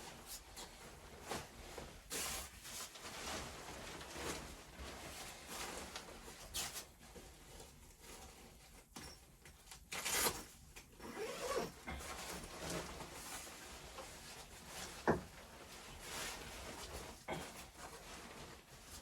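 Irregular rubbing and scraping with scattered light knocks, as of things being handled and moved about, with a sharper knock about ten seconds in and another about fifteen seconds in.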